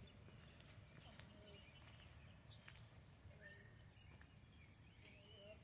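Near silence: a faint low background rumble with a few faint bird chirps.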